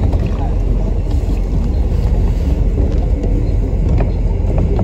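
Bus in motion, heard from inside the passenger deck: a steady low engine rumble and road noise, with two light clicks near the end.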